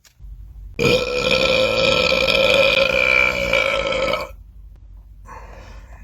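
A man belching: one long, loud belch lasting about three and a half seconds, held at a steady pitch.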